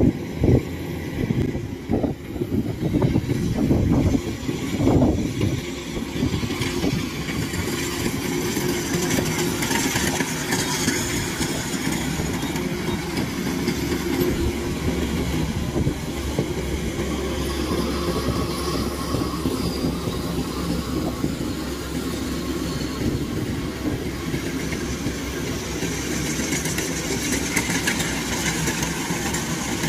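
Tracked rice combine harvester driving past close by: its diesel engine runs steadily under the rattle of its crawler tracks and threshing machinery. Several uneven knocks come in the first few seconds.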